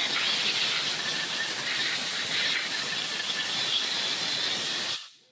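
A loud, steady hiss of pressurized spray that cuts off abruptly near the end.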